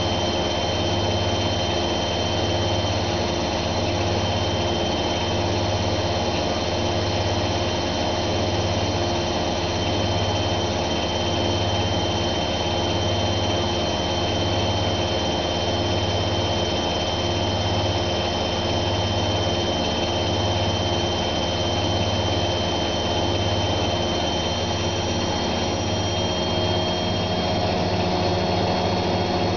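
Zanussi ZWF 1621 W washing machine on a high-speed spin: a steady motor whine with a high tone above it and a low hum that throbs slowly. Near the end the pitch shifts slightly.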